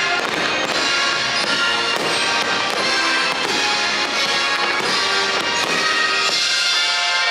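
Christmas music from a fireworks show soundtrack playing loudly and steadily, with a few firework bangs faintly mixed in.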